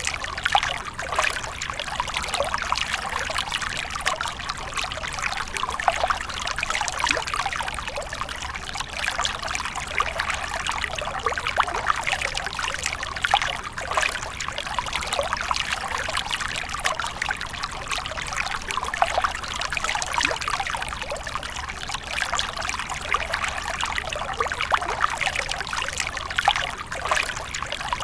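Water splashing continuously: a steady, dense stream of small splashes that neither pauses nor changes.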